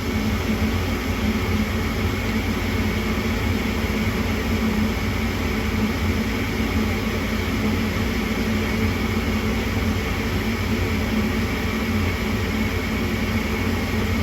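Gas furnace draft inducer motor running with a steady hum while the igniter heats up during the furnace's start-up sequence.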